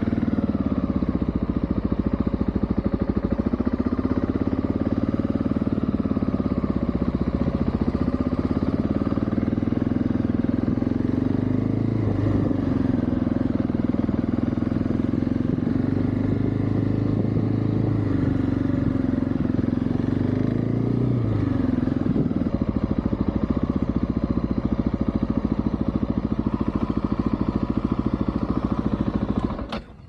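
Dual-sport motorcycle engine running while the bike is ridden slowly, its pitch rising and falling gently with the throttle. The engine is switched off just before the end.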